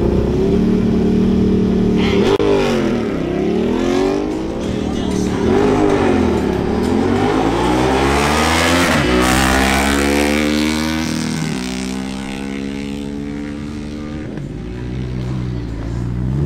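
Suzuki GSX-R1000 and Ducati Diavel motorcycles launching in a quarter-mile drag race: engines held at high revs at the line, then accelerating hard, each engine note climbing and dropping sharply at every upshift, the two engines overlapping. They fade as they pull away down the strip.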